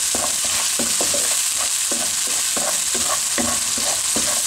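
Onion-tomato masala sizzling in hot oil in a kadhai as a wooden spatula stirs and scrapes through it in quick repeated strokes, about two or three a second. The masala is at the bhuna stage, frying until the tomatoes break down.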